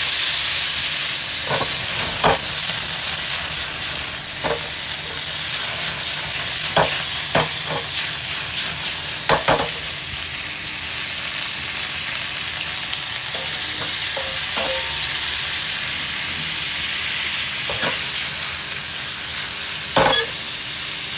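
Beef cubes sizzling steadily in a hot pan, with a few sharp knocks and scrapes as a utensil stirs them against the pan.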